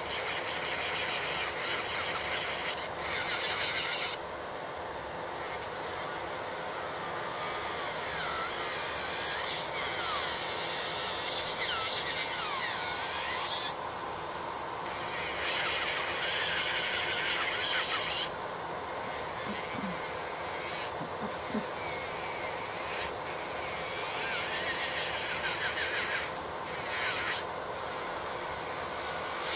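Electric nail drill with a sanding band grinding acrylic nails. Its high hiss swells and fades in stretches of a few seconds, over the steady whir of a Makartt nail dust collector fan.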